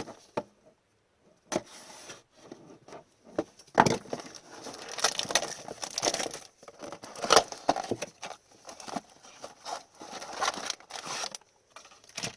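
Trading card blaster box and its packs being torn open by hand: cardboard and plastic wrappers crinkling and ripping in irregular bursts, with sharp clicks and taps.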